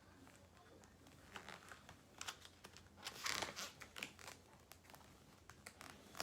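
Faint paper rustling and crinkling, several irregular crackles that are loudest around the middle: the pages of a paperback book being handled and turned.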